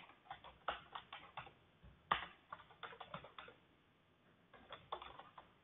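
Computer keyboard being typed on: faint, irregular keystrokes in quick runs, with a pause of about a second before a last run of keys near the end.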